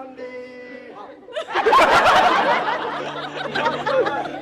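Several people laughing and chattering, swelling loudly about one and a half seconds in, over a few steady held tones.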